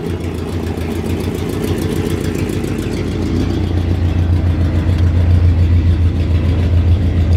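1968 Buick Wildcat's 430 V8 running as the car drives along, with a steady low hum and road rumble that grows louder a few seconds in.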